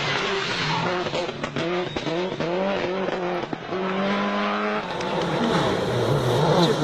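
Rally car engine at full effort, revving up and dropping back again and again through quick gear changes, holding one pitch briefly, then giving way mostly to rushing road and tyre noise near the end.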